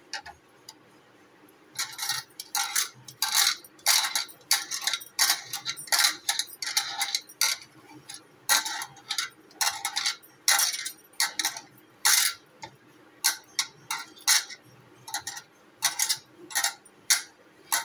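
Boiled, chilled potato rubbed down a flat metal hand grater whose tip rests on a plate: repeated rasping strokes, about one or two a second, starting about two seconds in.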